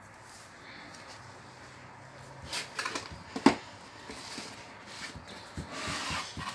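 Cardboard mailer box being handled and opened: rustling and scraping of cardboard flaps, with a few clicks and one sharp snap of cardboard about halfway through.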